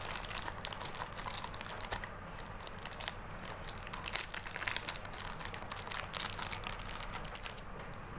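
Clear plastic wrapping being pulled off a roll of green flat latex slingshot band, rustling in quick, irregular crackles that thin out shortly before the end.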